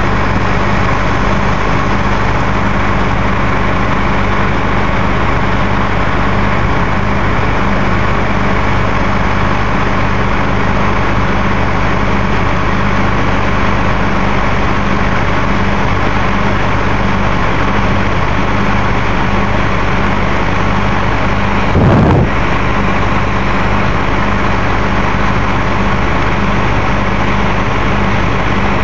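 Case IH combine running steadily, a continuous engine and machine drone, with a brief louder sound about three-quarters of the way through.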